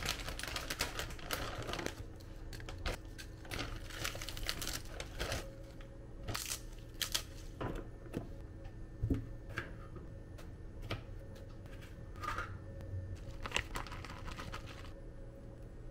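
A plastic bag of salad greens crinkles as the leaves are tipped into a glass bowl. After that come scattered light clicks and rustles of food being handled: a plastic container lid and a crinkly cheese pouch, with a faint steady hum underneath.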